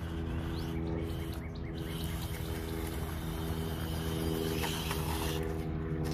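Hobby Plus CR-18 1/18-scale RC crawler's small electric motor and gears whining steadily as the truck strains at a rock climb it cannot get up, with a few light crackles.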